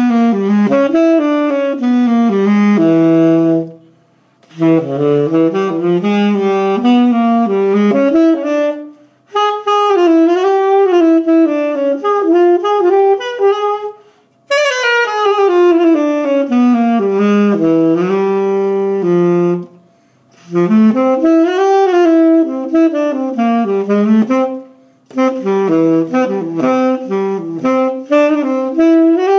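Unaccompanied tenor saxophone, a P. Mauriat 66R DK played on a Mouthpiece Cafe Espresso 7* mouthpiece (.105 tip, modelled on a short-shank Soloist) with a Vandoren 3.5 reed, playing jazz phrases. The phrases run a few seconds each, with short breaks for breath about every five seconds.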